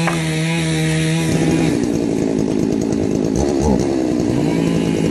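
Two-stroke chainsaw running at high revs with a steady note; about a second in the note turns rough and uneven, as when the chain bites into wood under load, and it steadies again near the end.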